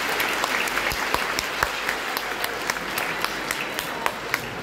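Audience applauding: many hands clapping at once, thinning slightly toward the end.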